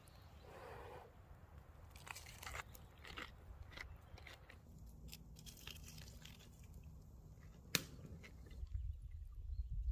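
Faint scattered crunches and clicks, with one sharp click about three-quarters of the way in.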